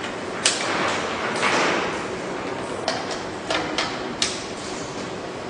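Several sharp clicks and knocks of LED display panels being fitted and latched into place, over a steady hiss.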